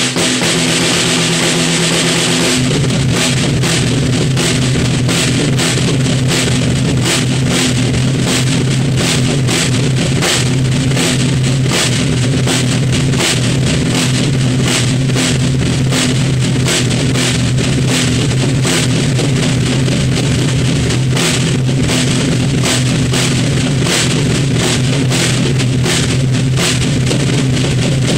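An acoustic drum kit is played fast and hard, with steady, rapid stick hits on the drums and cymbals ringing over them. Underneath there is a sustained, pitched rock backing part, guitar-like, that gets heavier about two and a half seconds in.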